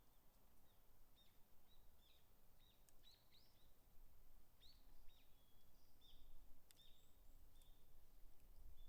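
Small birds calling faintly: a string of short, high chirps and little up- and down-sliding notes, scattered irregularly over a near-silent background.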